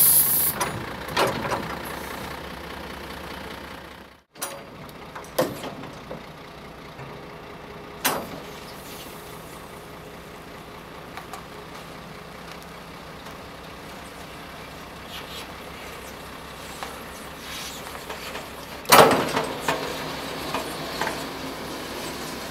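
Truck's diesel engine idling steadily while the hydraulic snowplow blade is worked, with a few short clunks and a louder hissing, clanking burst about nineteen seconds in.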